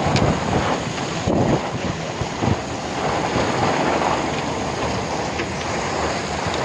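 Heavy rain and wind, a steady rushing noise, with wind buffeting the microphone in gusts.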